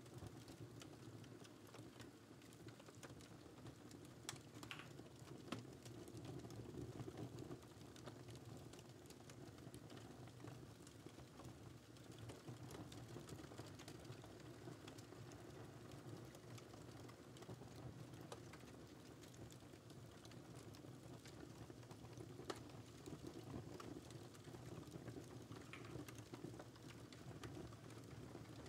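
Quiet typing on a computer keyboard: irregular key clicks over a steady low background of a crackling fireplace recording.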